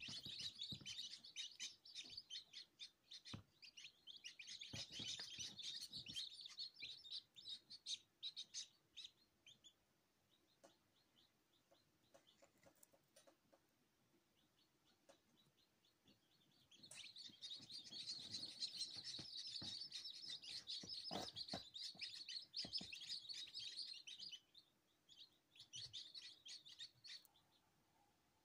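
A brood of newly hatched chicks peeping together: rapid, high, short cheeps in busy bursts that thin out for several seconds in the middle, then come back loud.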